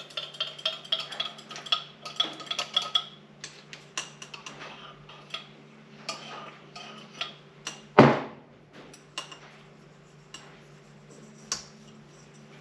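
Metal engine parts and hand tools clinking and ticking as a two-stroke engine's cylinder and piston are fitted by hand. A quick run of light ringing ticks comes in the first three seconds, then scattered clicks, and one louder clunk about eight seconds in. A steady low hum runs underneath.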